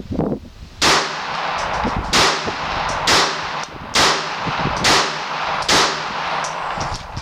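Glock 42 .380 ACP semi-automatic pistol firing six shots at a steady pace of about one a second, each shot a sharp crack with a short echo.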